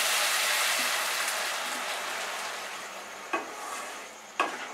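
Water poured into a pan of hot masala frying in oil, a loud sizzle that dies away steadily over a few seconds. Two light knocks near the end.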